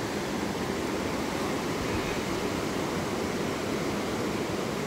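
Steady rushing of a swollen, fast-flowing river current running past rocks near the bank.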